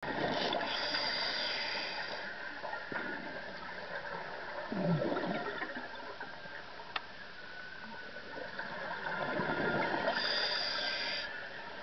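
Scuba regulator breathing underwater: a hissing inhalation in the first two seconds and again about ten seconds in, with gurgling, bubbling exhalations between. A single sharp click about seven seconds in.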